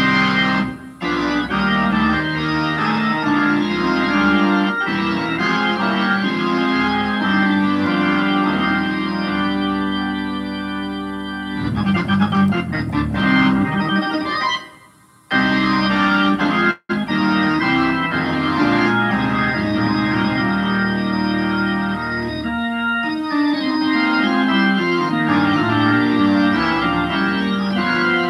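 Organ played solo with full held chords and moving lines. The playing breaks off briefly about fifteen seconds in, and the sound cuts out for an instant just after.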